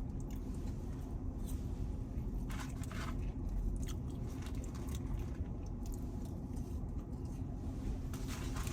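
Close-up chewing and biting of an In-N-Out burger and fries, with scattered short crackles, over a steady low hum.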